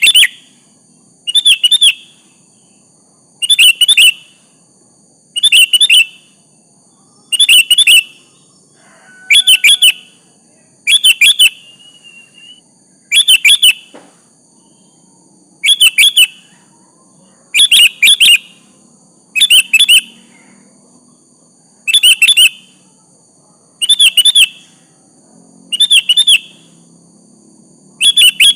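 Sooty-headed bulbul (kutilang) calling: a short, loud chirping phrase repeated about every two seconds, used as a lure call to draw a reply from another bulbul.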